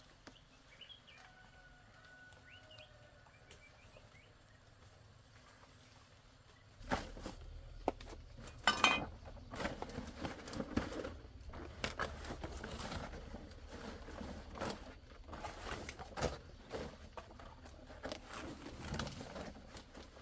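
Faint bird calls over a quiet background, then from about seven seconds in a run of irregular knocks, taps and rustling, the sound of someone handling things and moving about.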